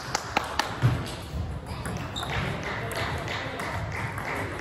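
A table tennis ball clicks several times in quick succession off bats and table within the first second, then a dull thump. After that only the softer steady noise of the hall remains.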